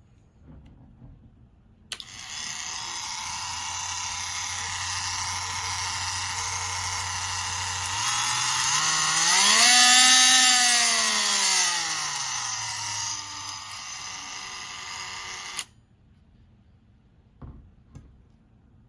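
Cordless oscillating multi-tool switched on about two seconds in and running with a steady whine. Midway its pitch rises and then falls back, and it switches off about three seconds before the end, with a few faint handling clicks before and after.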